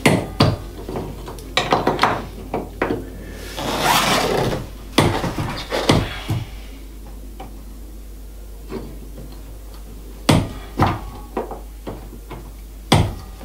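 Steel locking pliers clanking and knocking on a large keel bolt nut set in a wooden floor timber as they are clamped on and heaved to break the nut loose. A run of sharp knocks, a scraping rasp about four seconds in, then quieter with a few more knocks near the end.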